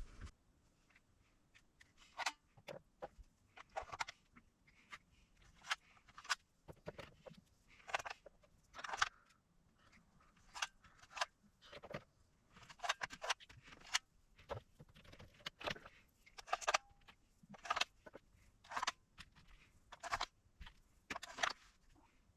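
Scattered light clicks, clinks and scrapes, one or two a second, of small tools and parts being handled on a workbench.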